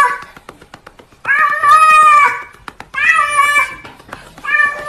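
Cat meowing over and over in long, steady-pitched meows, each about a second long, with faint clicks in the gaps between them.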